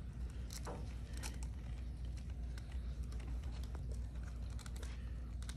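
Scattered small clicks and taps from handling a mousetrap car as it is reset and wound up, over a steady low hum.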